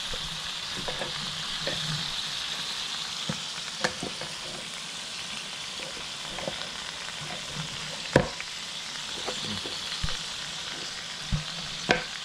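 Whole lobsters sizzling steadily on the hot ribbed plate of a George Foreman electric grill. A few sharp knocks break in as the lobsters are handled and moved about, the loudest about eight seconds in.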